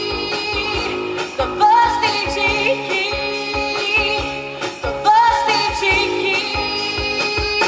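Live pop song played over a PA: a woman sings into a microphone over a band, with drums keeping a steady beat.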